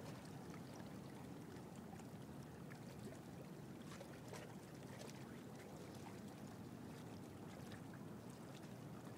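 Faint water lapping and trickling, with a steady low rumble and scattered small splashes.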